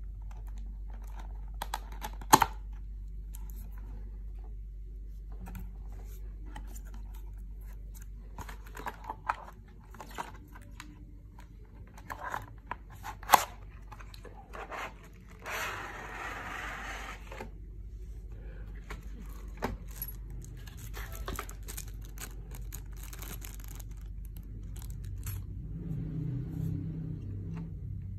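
Cardboard product box and its packaging being handled and opened by hand: scattered taps and knocks, two of them sharp, and about halfway through a rustling tear of packaging lasting about two seconds.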